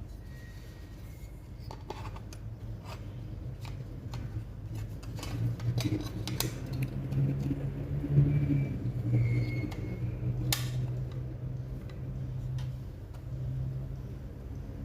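Light clicks and taps of laptop parts being handled while an SSD is positioned in the drive bay, with one sharper click about ten and a half seconds in, over a low hum.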